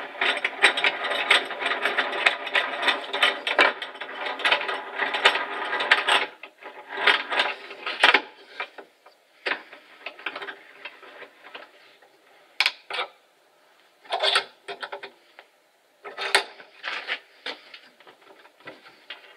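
Wooden workbench's front vise being worked: the metal screw and bar handle click and rattle rapidly for about six seconds, then come scattered knocks and short rattles as the handle is turned and the jaw closes on a wooden batten.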